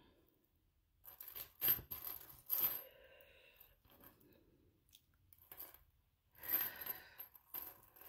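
Small metal jewelry findings, lobster-claw clasps and fine chain, clicking and clinking in the fingers as they are unhooked. The light metallic taps come in two clusters, one about a second in and one near the end.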